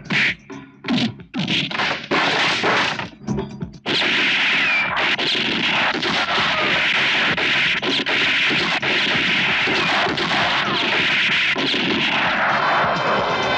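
Film gunfight: a few separate gunshots in the first four seconds, then a continuous barrage of gunfire from several guns with bullets striking wooden crates. Background score music comes in near the end.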